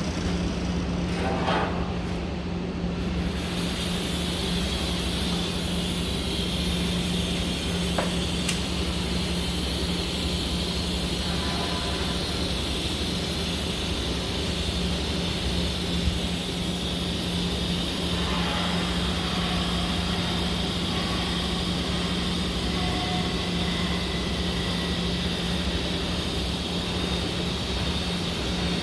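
TIG welding arc and welding machine running steadily: a constant low hum under a hiss that sets in a few seconds in and holds.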